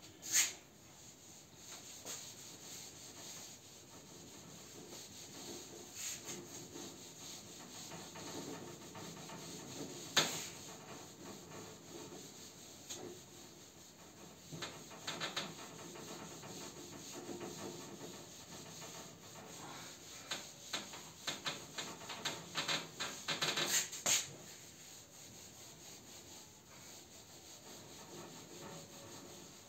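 A handheld duster rubbing across a whiteboard in repeated wiping strokes, erasing marker writing. A few short sharp knocks stand out: one near the start, one about ten seconds in, and a quick run of them a few seconds before the end.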